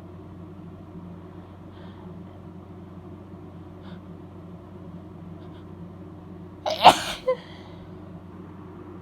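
A woman sneezes once, wet, about seven seconds in: a quick catch of breath, then the loud sneeze, then a short smaller burst half a second later. She has a cold. A steady low hum runs underneath.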